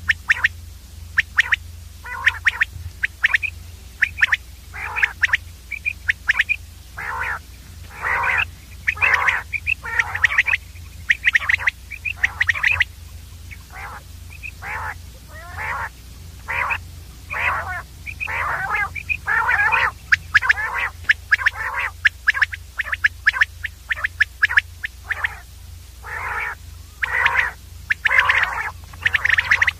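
Common quail calling: a dense, unbroken run of short, sharp calls, more than one a second, over a steady low hum.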